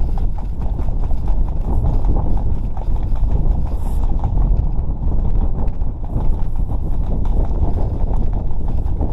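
Strong wind buffeting the microphone: a loud, continuous low rumble full of rapid, irregular clattering knocks.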